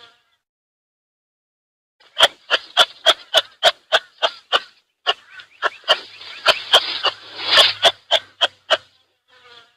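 Kangaroo clucking: a rapid run of short, sharp clucks, about three a second, starting about two seconds in, with a breathy hiss under the clucks in the middle stretch.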